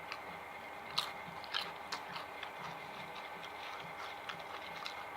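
Close-up chewing of food, a steady rhythmic mouth sound with a few sharp crunches about a second in and smaller clicks after.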